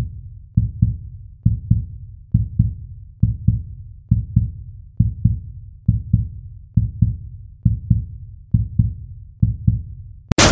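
Intro sound design built on a deep heartbeat-like pulse: low thumps in pairs, about one pair every second. Just before the end a sudden loud crashing noise cuts in.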